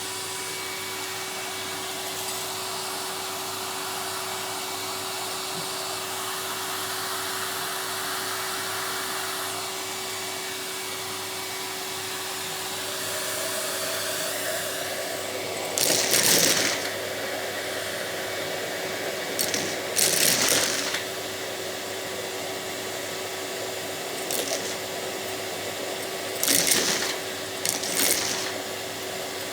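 Vacuum cleaner running steadily with a constant hum, with hard custard apple seeds being sucked up and rattling through the nozzle in several short, loud bursts of clatter in the second half.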